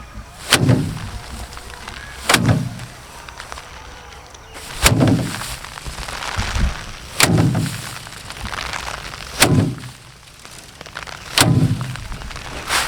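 Bundles of harvested rice stalks beaten against a drum to thresh the grain: six heavy strikes about two seconds apart, with rustling straw after each.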